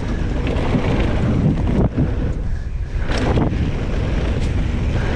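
Wind buffeting the microphone over the steady rumble of a 2017 Giant Trance 2 mountain bike rolling along a dirt trail, with a couple of sharp knocks from the bike over rough ground.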